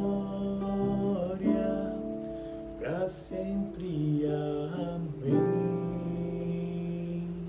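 Acoustic guitar strumming the closing chords of a worship song. The last chord is struck about five seconds in and left to ring out.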